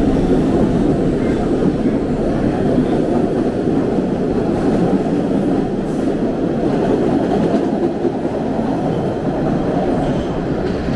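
MBTA subway train running at speed, heard from inside the car: a steady, loud noise of wheels on rails.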